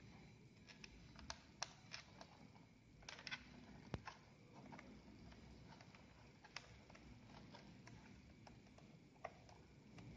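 Faint, scattered clicks and taps of a laptop's plastic back cover and its screws being handled and refitted, with a small cluster about three seconds in and one sharper click about a second later.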